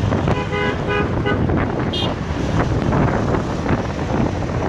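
Wind rushing over the microphone on a moving motorcycle, with road and traffic rumble. A vehicle horn gives three quick toots about half a second in, and a short higher-pitched honk sounds about two seconds in.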